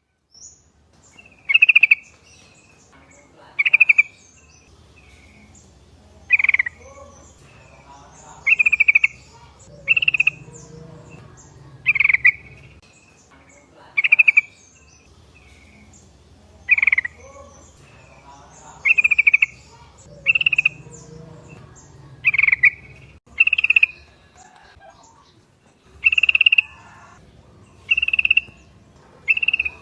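Yellow-vented bulbul (trucukan) calling: short, bubbly phrases repeated about every two seconds, over a faint low background hum.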